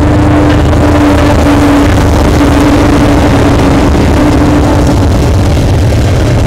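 Two diesel freight locomotives passing close by, a loud steady rumble with a constant hum over it that fades near the end, followed by tank cars rolling past.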